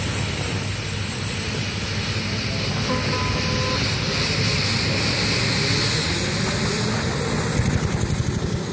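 Pulling tractor's engine running flat out under load as it drags a weight-transfer sled, a dense rumble with a high whine that slowly rises in pitch and a choppier pulsing near the end.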